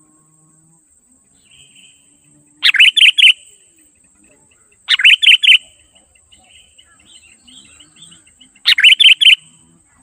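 Sooty-headed bulbul (kutilang) calling in three loud phrases a couple of seconds apart, each about four quick notes. Softer chirps come between the phrases.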